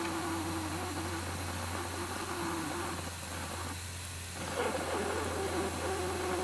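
Live-steam locomotive No. 7 standing in steam: a steady hiss of steam with a wavering hum underneath, briefly dropping a little past halfway before picking up again.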